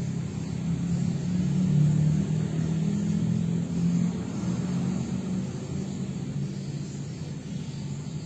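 Low engine drone that swells about a second or two in, then slowly fades.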